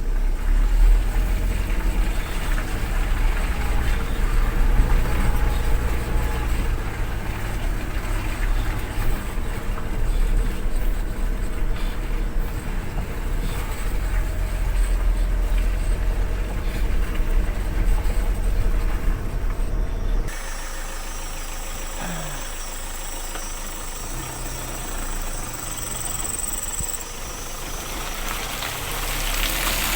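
A vehicle engine running steadily with a strong low rumble, which drops abruptly to a quieter engine sound about two-thirds of the way in.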